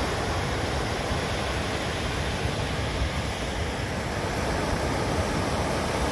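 Sea surf washing steadily, an even wash of noise with a low rumble and no separate wave breaks standing out.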